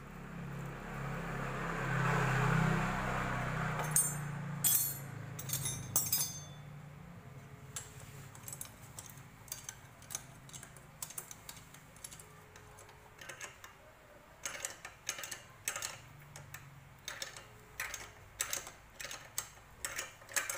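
Small metallic clicks and clinks of a wrench against a motorcycle chain sprocket and its bolts, coming about two a second in the second half. Earlier, a low hum with a rushing noise swells and fades over the first several seconds.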